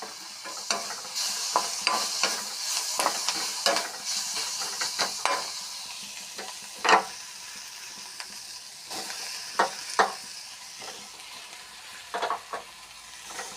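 Onion and spice masala sizzling in hot oil in a cooking pan while a spatula stirs it, scraping and knocking against the pan at irregular moments. The sizzle is louder in the first few seconds.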